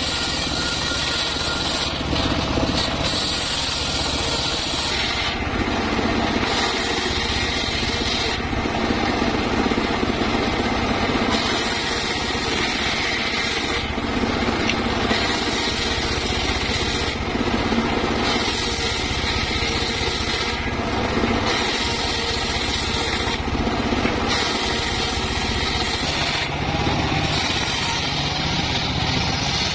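Homemade circular saw bench running with a steady motor drone, its blade ripping through wooden planks to trim off their bark edges. The high cutting noise comes and goes about ten times as each board is pushed through and pulled back.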